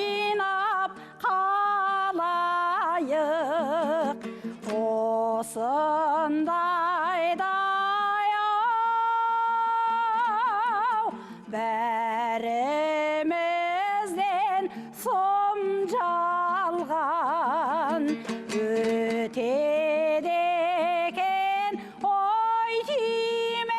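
A Kazakh folk song from the Altai sung solo with wide vibrato and long held notes. It is set over a steady low instrumental accompaniment, with short breaths between phrases.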